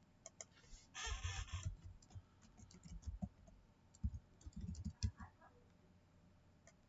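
Scattered small clicks, scratching and soft low thumps close to the microphone, with a short hissing rustle about a second in.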